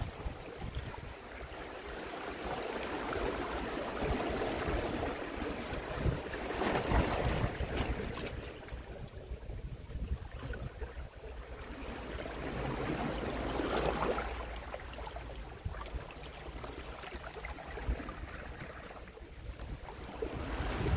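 Small waves washing against the shore, rising and falling in slow swells, with wind rumbling on the microphone.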